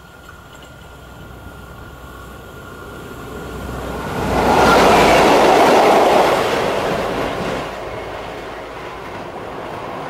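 A pair of Dutch NS Class 6400 diesel-electric locomotives passing close by on the track and then running away. The sound builds for a few seconds, is loudest from about four and a half to seven seconds in with engine noise and wheels on rail, then fades as they recede.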